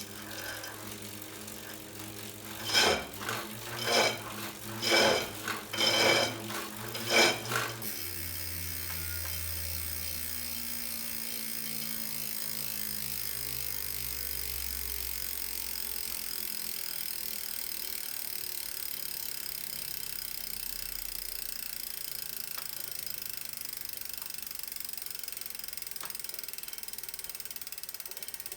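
Tacx Neo 2 smart bike trainer making a loud scraping noise that surges about once a second, six times, the sign of a fault inside the trainer. After that the surges stop, and a steady ratchet-like ticking runs on while a low hum slowly falls in pitch.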